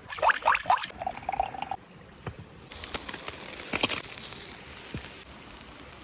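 Liquid pouring and splashing, with quick rising gurgles at first and a louder hissing rush about three seconds in.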